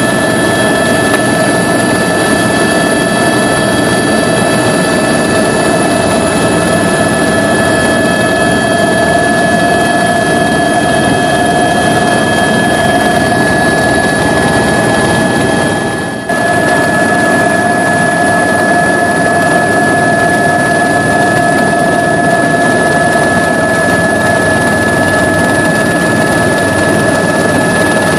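Helicopter in flight heard from inside the cabin: a loud, steady engine and rotor drone with constant high tones over it. The level dips for a moment about 16 seconds in, then carries on unchanged.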